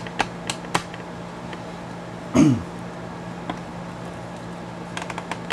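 A steady low hum with a few sharp clicks, and about two and a half seconds in a short, loud throat-clearing sound from a person, its pitch dropping quickly.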